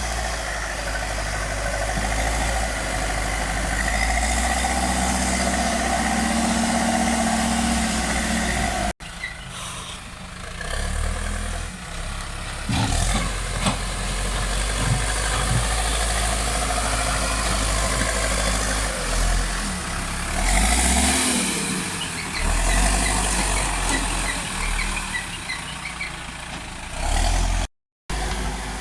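Backhoe loader's diesel engine running, steady for long stretches and rising and falling in revs as it works, with clattering at times. The sound breaks off suddenly about nine seconds in and again briefly near the end.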